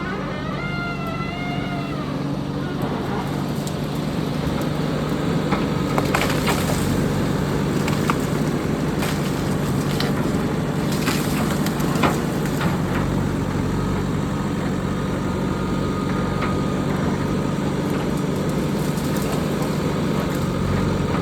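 JCB backhoe loader's diesel engine running steadily while a tree is broken, with wood cracking and splintering several times in the middle.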